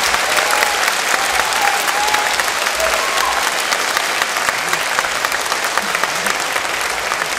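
Audience applauding steadily after a concert song, with a few faint voices calling out in the first few seconds.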